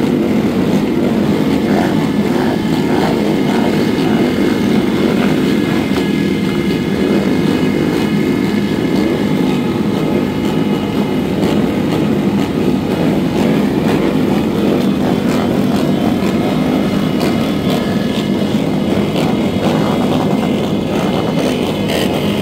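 A pack of Harley-Davidson V-twin motorcycles running together at idle, a loud, steady drone of many engines overlapping.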